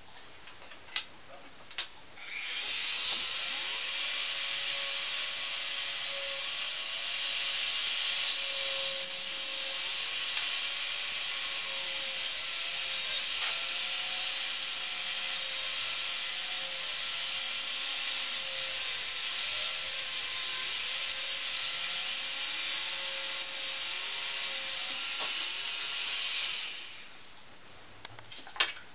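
Small handheld rotary tool with a fine drill bit spinning up about two seconds in and running with a steady high whine for over twenty seconds, its pitch dipping briefly now and then, before winding down near the end. It is drilling into small plastic model parts. Two light knocks come before it starts.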